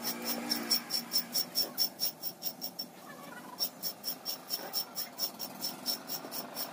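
Insect chirping: a rapid, even train of high clicks, about seven a second, with a short break near the middle.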